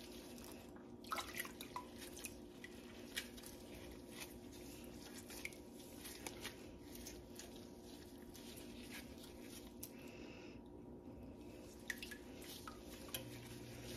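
Faint drips and soft squishing of mozzarella curd being worked by hand and dipped to shape it into a ball, with scattered small clicks over a faint steady hum.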